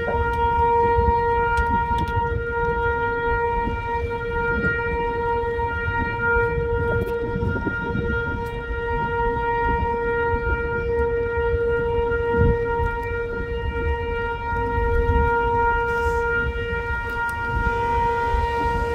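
A horn sounding one unbroken, steady note, with a low rumbling noise underneath.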